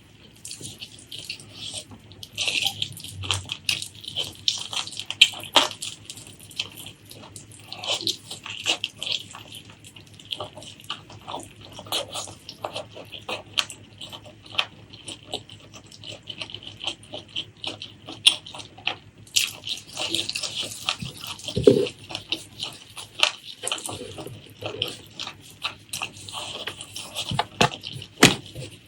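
Close-miked eating sounds: a continuous, irregular stream of wet smacks, clicks and chewing as a person eats spicy pork leg curry with rice.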